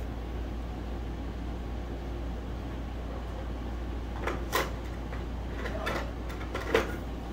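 Doors and parts of a plastic toy play kitchen being handled, opened and shut: several light plastic clacks and knocks in the second half, the loudest near the end, over a low steady room hum.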